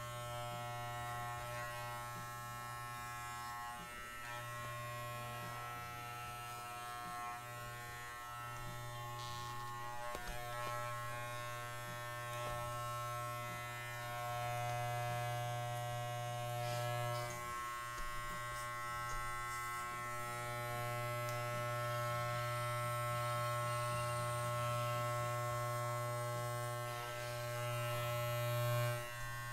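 Corded electric pet clippers running with a steady buzzing hum while clipping a dog's coat, the level rising and falling a little as they work.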